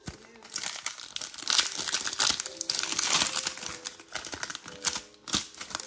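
Foil wrapper of a Pokémon trading-card booster pack crinkling and crackling as it is torn open and pulled apart by hand.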